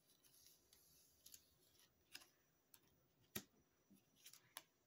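Near silence with a few faint, short clicks and rustles of a playing card being handled and lifted off a cloth; the sharpest click comes about three and a half seconds in.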